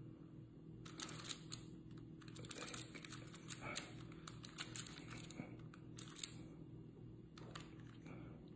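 Rubik's cube being turned by hand, its plastic layers clicking and clacking in quick, irregular runs, over a faint steady hum.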